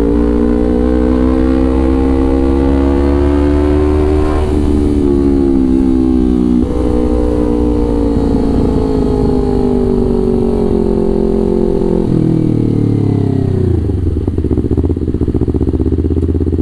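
Kawasaki Ninja 250 FI's parallel-twin engine, fitted with a Villan New ZX1 aftermarket exhaust, pulling under way. The revs climb, dip at a gear change about four seconds in, and climb again. They step up sharply around seven seconds, ease down gradually, then fall away to low revs from about twelve seconds.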